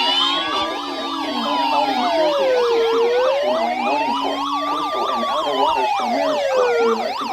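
Several electronic sirens sounding at once: a slow wail rising and falling about every four seconds over rapid, overlapping yelps, with a steady low tone that stops about five seconds in.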